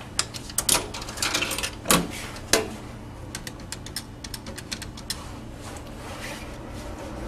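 A quick irregular run of light clicks and taps, with a few louder knocks in the first few seconds, over a steady low hum.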